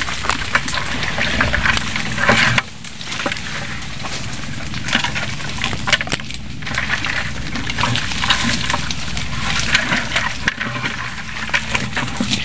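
Leaves and twigs rustling and scraping against a handheld phone as it is carried through thick brush, with many small cracks and clicks from snapping twigs and handling.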